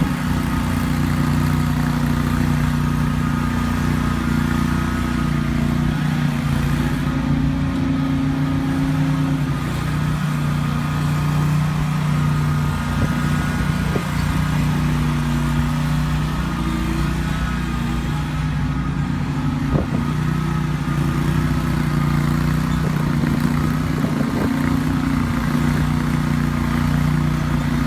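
2015 Country Clipper riding lawn mower's engine running steadily at an even speed, with small shifts in pitch and a couple of faint clicks.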